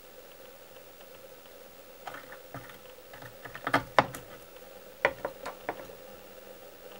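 Light, sharp clicks and taps from handling fly-tying tools and materials at the vise. They start about two seconds in, come thickest about four seconds in, and a few more follow, over a faint steady hum.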